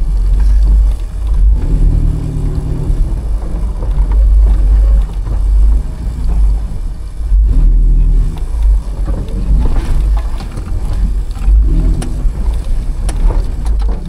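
1985 Toyota rock crawler's engine running at crawling speed over rocks, under a heavy low rumble, with the throttle swelling in short bursts every few seconds. A few sharp knocks near the end.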